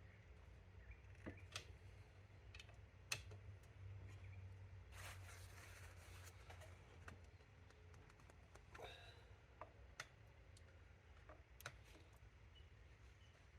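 Near silence over a low steady hum, with faint scattered clicks and taps of small metal parts and hand tools being handled during motorcycle gearbox reassembly, and a brief rustle about five seconds in.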